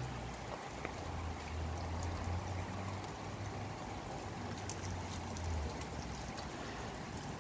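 Rain and gusting wind: a steady hiss of rain with scattered sharp ticks of drops, and a low rumble that drops away about three-quarters of the way through.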